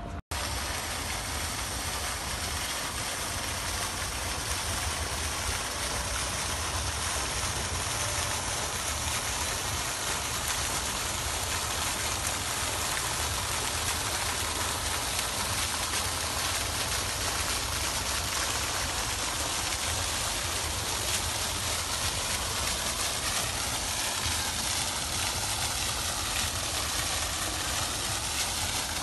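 Pond fountain: a single vertical water jet spraying up and splashing steadily back into the pond.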